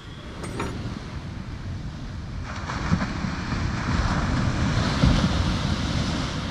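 Small waves breaking and washing up a sandy beach, with wind rumbling on the microphone. The wash swells about two and a half seconds in, is loudest around five seconds in, then eases off.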